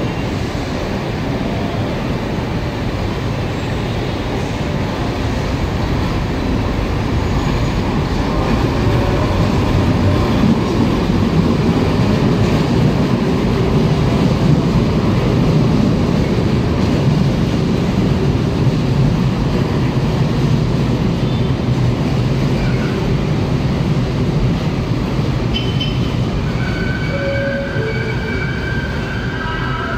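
LRT-1 4th-generation light rail train pulling slowly into the platform: a steady rumble of wheels and traction equipment that grows louder as the cars pass close by. A few thin high tones come in near the end as it slows.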